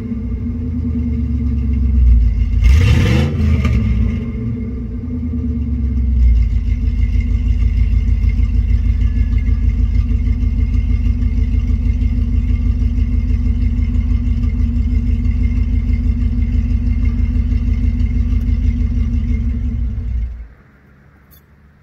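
1997 Chevy Silverado's 305 small-block V8 running through shorty headers and a Gibson MWA muffler. It is blipped once about two seconds in, settles into a steady, pulsing idle, then shuts off near the end. The engine has a bad misfire, which the owner later traced to a cheap replacement EGR valve.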